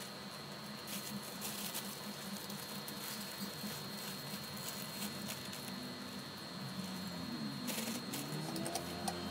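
Thin plastic bag crinkling and rustling in bursts as a stack of folded T-shirts is pushed into it, over a steady low hum.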